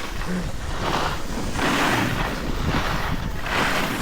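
Wind rushing over the microphone with skis or a board scraping over packed snow, swelling in regular surges.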